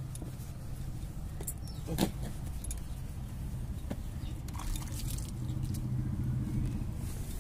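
Hands rubbing shampoo lather into a wet dog's coat, with light clinks from glass bangles on the wrist and a sharper click about two seconds in. Under it runs a steady low rumble.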